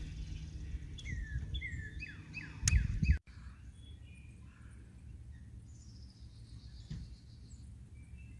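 Songbirds calling, with a quick run of down-slurred chirps in the first three seconds and fainter calls after that. A brief low rumble, the loudest sound, comes about three seconds in.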